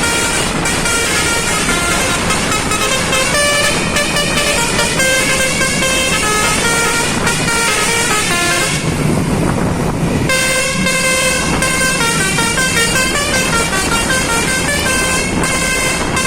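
Basuri telolet multi-tone bus horn playing a rapid melodic run of stepping notes over engine and road noise. The tune breaks off for a little over a second about nine seconds in, then starts up again.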